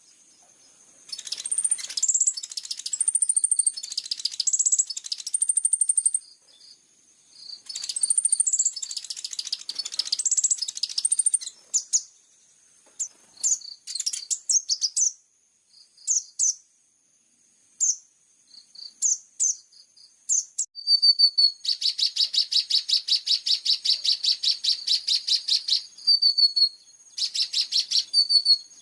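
Kolibri ninja (konin) sunbird song from a masteran training recording: high, thin whistles and quick chirping phrases with short pauses, then a long, rapid buzzing trill about three-quarters of the way through and a shorter one near the end.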